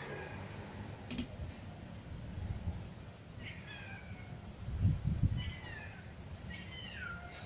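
A cat meowing three times in short calls that fall in pitch, starting about three seconds in. A sharp click about a second in, and low thumps near the middle.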